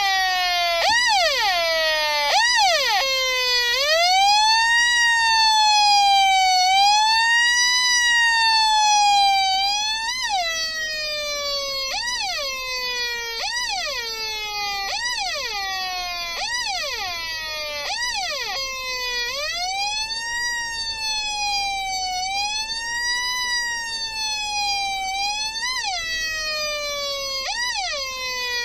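Homemade transistor electronic siren circuit imitating an American police siren: a buzzy tone that sweeps up and down in pitch. It switches back and forth between quick yelping sweeps, a little under a second each, and slower wailing rises and falls.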